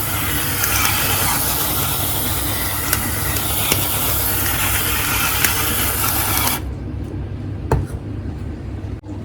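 Pepper mill grinding fresh black pepper: a continuous grind that stops suddenly about six and a half seconds in, followed by a single knock, over a steady low hum.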